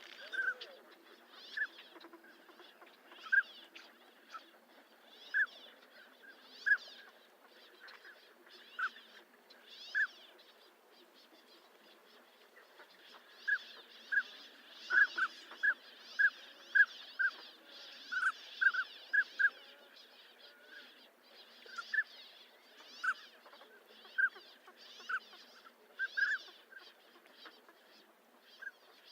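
Northern pintail calling: a long series of short, clear whistled notes, irregularly spaced, falling quiet for a couple of seconds about a third of the way through and then coming thick and fast before thinning out again, over faint background hiss.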